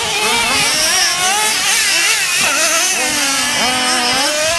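Radio-controlled model cars racing, their small high-pitched motors revving and easing off so that the pitch rises and falls constantly, with more than one motor heard at once.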